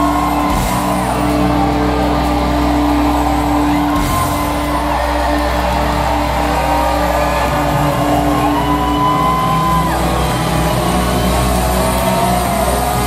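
Live rock band playing loud, with electric guitars over a steady bass and drums, heard through a club PA from within the crowd, with whoops and shouts from the audience.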